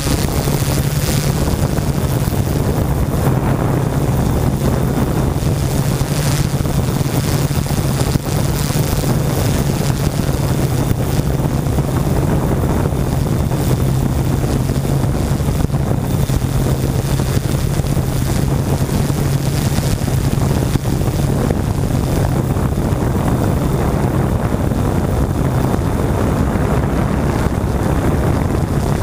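Drone's motors and propellers humming steadily in flight, heard through the camera on board, with wind noise on the microphone.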